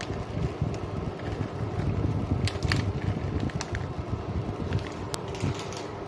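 Steady fan running with a low rumbling hum, and a few light clicks and rustles as a packet of grated Parmesan cheese is shaken over the pan.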